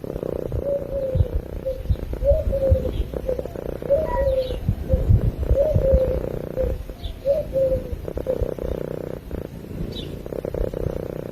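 Domestic cat purring close to the microphone, a rapid low pulsing rumble, with a wavering higher tone rising and falling over it.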